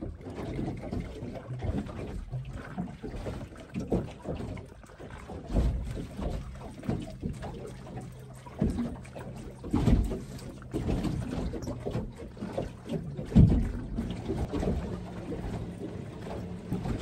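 Choppy water slapping against the hull of a small Quintrex aluminium boat as it drifts, with irregular knocks and thumps, the loudest about thirteen seconds in.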